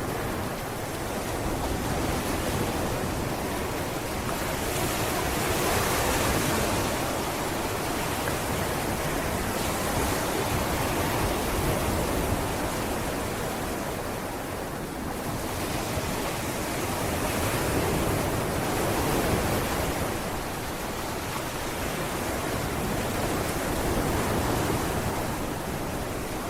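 Sea waves breaking and washing up a beach, a continuous rushing surf that swells and ebbs every few seconds, with some wind on the microphone.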